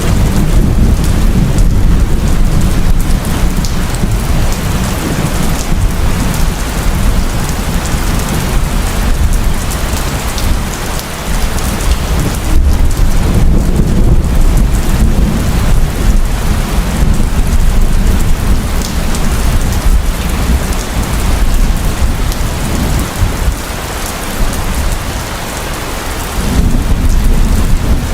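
Heavy rain falling steadily, with low thunder rumbling underneath that swells and eases.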